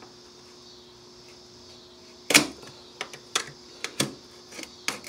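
A loud sharp snap a little over two seconds in, then a string of irregular clicks, from a utility knife cutting and prying at old floor covering stuck to the subfloor.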